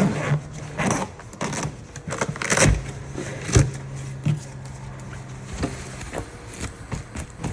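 Fabric cover being pulled out of a foot massager: rustling and several knocks and bumps of handling, loudest in the first four seconds, over a low steady hum that fades out about five seconds in.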